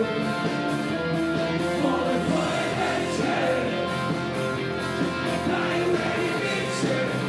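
Live rock band playing with vocals: voices sung into microphones over electric guitar and electric bass, at a steady, full level.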